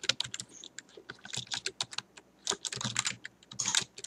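Typing on a computer keyboard: irregular runs of quick keystrokes with short pauses between them, as text is entered.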